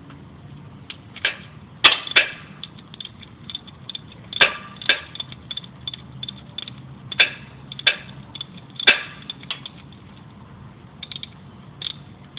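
Hand ratchet with a 3/4 inch socket clicking in runs as it turns down the centre bolt holding the drive flange on the transmission output, snugging it before torquing. Several sharper clacks stand out among the quick pawl clicks.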